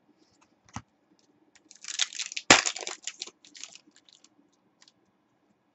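Trading cards being handled: a stack flicked and slid through the hands with quick papery clicks and rustling, with one sharp tap of cards against the table about two and a half seconds in as the loudest sound.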